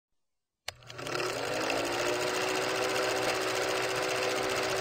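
Film projector sound effect: after a click, a fast, even mechanical clatter with a steady motor hum that climbs slightly in pitch as it gets going.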